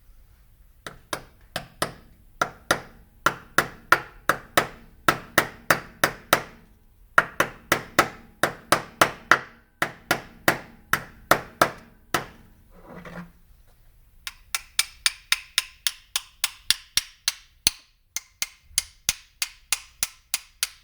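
Repeated hammer taps driving a bearing down into a drive hub housing, about two to three strikes a second. After a short pause about two-thirds of the way through, the taps turn lighter and sharper as the part seats.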